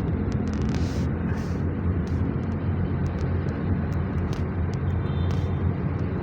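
Honda BR-V driving along: steady engine and road rumble heard from inside the cabin, with scattered light ticks.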